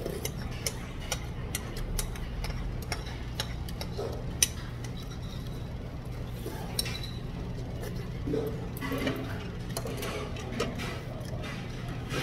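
Metal spoon clinking and scraping against a ceramic rice bowl as food is spooned up: a run of irregular light clicks, with one sharper clink a little over four seconds in, over a steady low hum.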